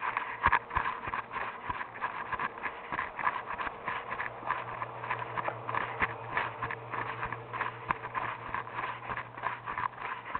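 Footsteps of a person walking, a continual run of short impacts several times a second, over a low steady hum that grows louder about four seconds in.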